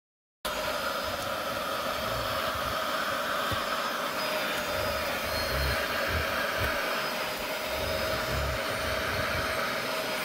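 Vacuum with a brush attachment running steadily while it is worked over a cloth car seat, cutting in suddenly about half a second in, with soft low bumps now and then as the brush moves.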